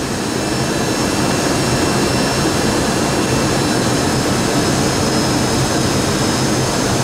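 Steady rush of airflow and jet engine noise inside the cockpit of a Boeing 737-200 on final approach, its Pratt & Whitney JT8D-17A turbofans running, with faint steady high whines above the roar.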